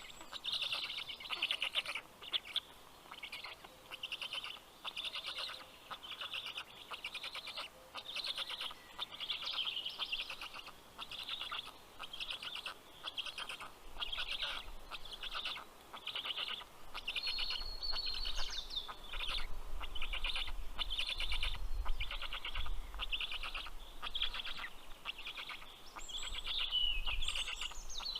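Black stork chicks calling at the nest: a long run of short rasping calls, about two a second.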